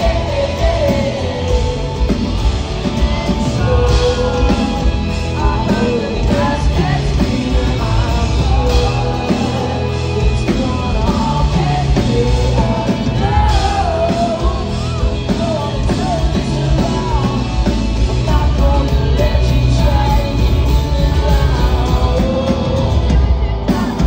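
Live pop-rock band playing: a lead singer over electric guitar, bass and drums, with a steady beat and heavy low end.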